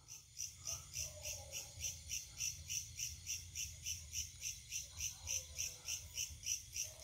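Night insect calling in a steady high-pitched pulse, about four pulses a second.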